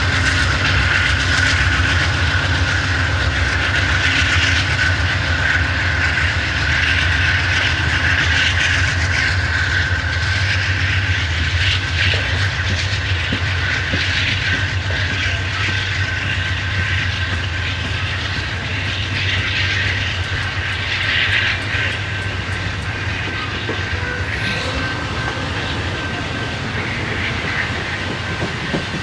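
Amtrak Superliner bilevel passenger cars rolling past: steady wheel-on-rail rumble with clicking over rail joints and a steady high whine. The level eases a little toward the end as the train draws away.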